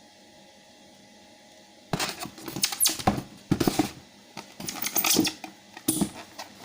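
Hard plastic parts of a pressure washer being handled and fitted together: a run of clicks, knocks and rattles that starts about two seconds in, after a faint steady background.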